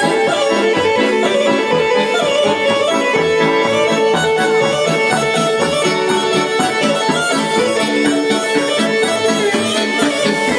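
Live Serbian folk dance music led by accordion, played by a band through a PA loudspeaker with a steady, even beat.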